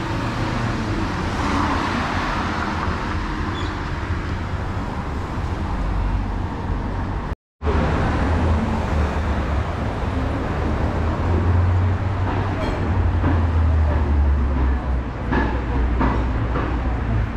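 Street ambience with road traffic: a steady traffic wash under a low engine rumble that grows louder for a few seconds past the middle. The sound cuts out completely for a moment about halfway through.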